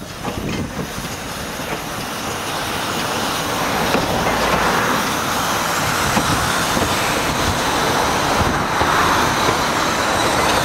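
Narrow-gauge Double Fairlie steam locomotive running light past at close range, its wheels running on the rails. It grows louder over the first four seconds and stays loud as it goes by.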